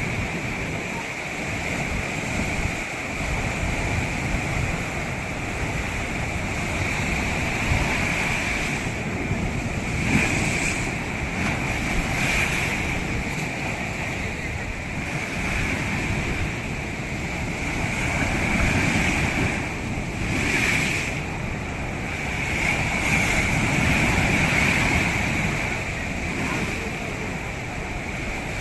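Ocean surf breaking and washing on a beach, swelling and easing every few seconds, with wind buffeting the microphone and a steady high-pitched hiss over it.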